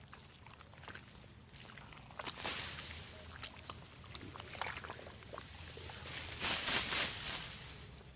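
Rustling and scuffling from handling a freshly trapped heron, in uneven bursts, loudest about two and a half seconds in and again over a second or so near the end.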